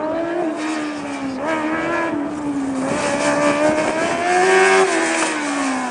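Formula SAE race car's engine revving up and down as the car is driven through the cones and passes close by. It is loudest about four and a half seconds in, then drops in pitch as the car moves away.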